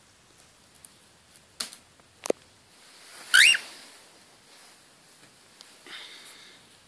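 Cockatiel giving one short whistled call that rises in pitch in quick steps, about halfway through, after two sharp taps a second or so earlier.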